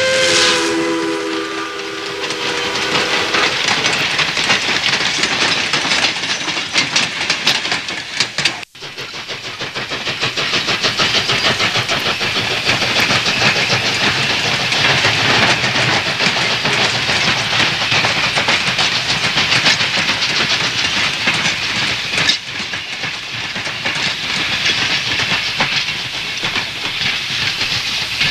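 A train running: a held chord of steady tones fades out in the first few seconds, then a steady rushing hiss with a rapid clatter. The sound drops out suddenly about nine seconds in and dips briefly again later.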